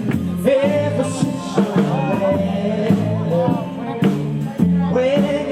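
A live band playing 1950s Sun Records-style rock and roll, with a bass line stepping through steady notes under a melody line.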